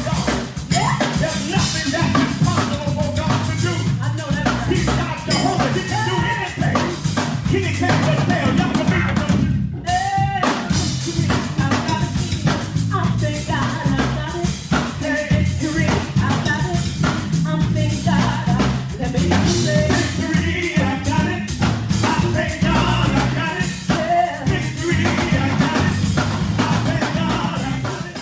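Gospel praise music: singing over a drum kit and bass.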